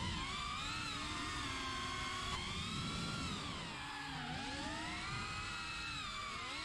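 Protek 35 cinewhoop quadcopter's brushless motors whining, heard from its onboard GoPro, the pitch rising and falling again and again as the throttle changes in flight.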